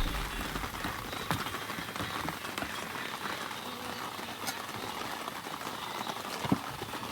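Steady hiss of rain with scattered small drop ticks, and one short thump about six and a half seconds in.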